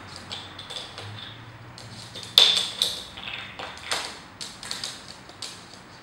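Blue plastic toy ball and plastic bottle cap being knocked about on a wooden floor by a male Eclectus parrot's beak: a scattered series of light plastic taps and clacks. The loudest comes about two and a half seconds in and rings briefly.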